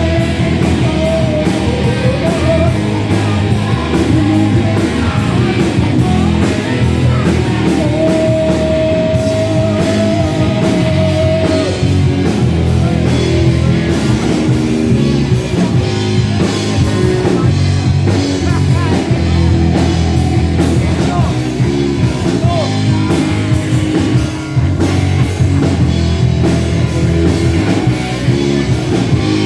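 Rock song with distorted electric guitars, bass, drum kit and singing, played at a steady driving beat.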